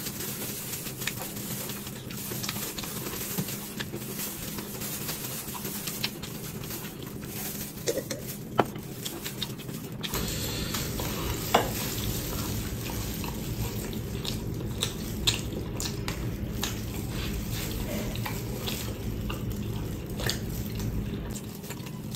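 Close-miked eating sounds: wet chewing and lip smacking as noodles and then a burger are eaten, with scattered clicks and a few sharper smacks standing out.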